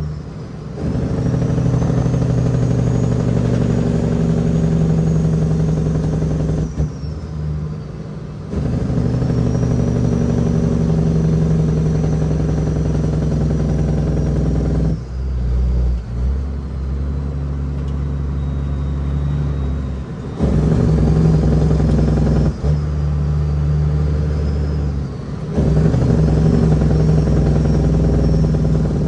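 Caterpillar 6NZ diesel of a heavily loaded Kenworth W900L pulling under load through the gears of an 18-speed transmission. Steady pulls are broken by short dips in the engine note at each gear change, about seven, fifteen, twenty and twenty-five seconds in.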